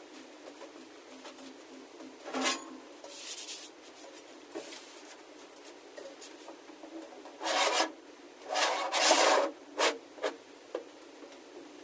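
Several short bursts of rasping, scraping friction, something hard rubbed against a hard surface while the battery module is being taken apart. The longest and loudest come about seven and a half and nine seconds in, with a few small clicks between.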